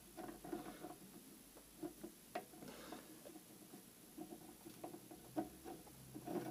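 Faint, irregular light metallic clicks and scraping as a threaded rod is worked by hand into a freshly cut 1 mm-pitch internal thread in an aluminium nut held in a lathe chuck. The thread is being test-fitted; the hole was slightly over-bored.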